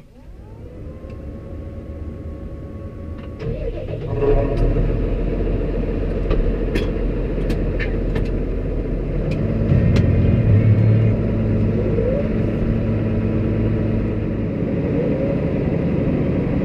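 A whine rises and holds steady, then an engine starts about three and a half seconds in and keeps running, with a deeper hum joining about ten seconds in.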